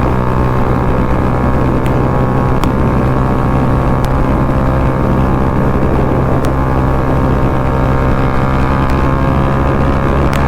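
Bajaj Pulsar NS200's single-cylinder engine running through an aftermarket Akrapovic full-system exhaust at a steady cruising speed on the move. The engine note holds one pitch, with a few faint ticks.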